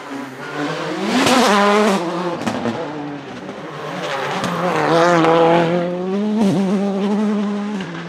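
Audi S1 RX quattro rallycross car's turbocharged engine run hard at full throttle, rising in pitch and loudness to a peak about a second in, easing off, then pulling up again to a second, longer peak around the middle, with a brief sharp drop in pitch near the end.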